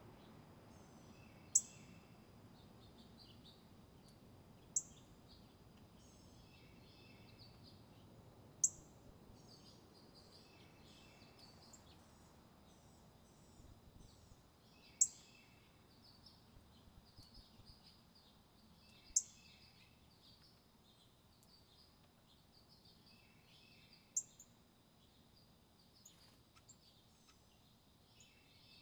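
A bird giving six sharp, very high chip calls spaced a few seconds apart, with fainter short bird calls between them. A steady high-pitched tone runs underneath the whole time.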